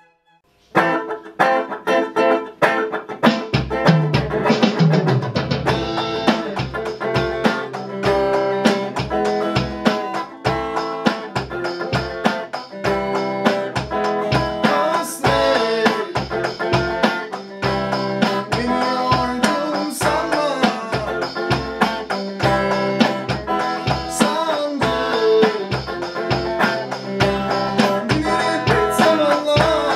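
Electric guitar playing a bending melody line over a steady beat on an electronic drum kit, starting about a second in after a brief silence.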